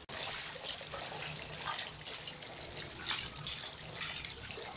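Water sloshing and splashing in a basin as batik cloth is worked and lifted by gloved hands, in irregular surges. This is the cold-water rinse that follows the hot-water soak that strips the wax.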